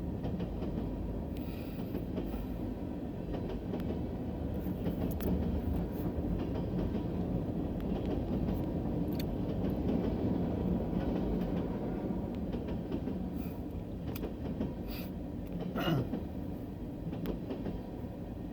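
Long freight train of boxcars rolling past a grade crossing: a steady rumble of steel wheels on rail, broken by scattered sharp clicks.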